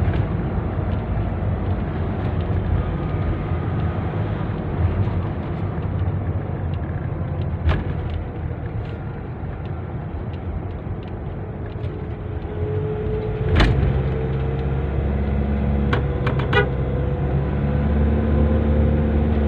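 Inside the cabin of a Nissan NV350 van driving at highway speed: steady engine and road rumble. A sharp click comes about two-thirds through, and after it a steadier engine drone comes up.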